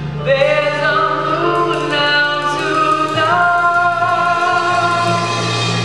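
A man and a woman singing a musical-theatre duet over a band accompaniment with a steady low note, moving about three seconds in to a long, held final note that ends near the end.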